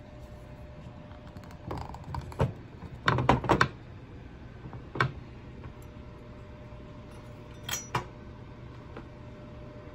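Chef's knife knocking against a wooden cutting board as it is pressed down through a row of mozzarella string cheese sticks, cutting them in half. A quick cluster of sharp knocks about three seconds in, with single knocks near two and five seconds and a pair near eight seconds.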